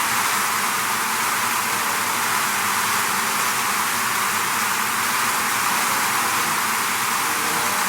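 A swarm of bees buzzing as one steady, dense hiss-like drone, close to the sound of a rain shower.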